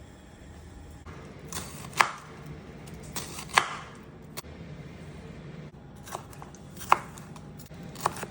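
A utensil knocking and scraping against a deep skillet as raw ground meat is added and broken up for browning. There are several sharp knocks a second or more apart over a low steady hum.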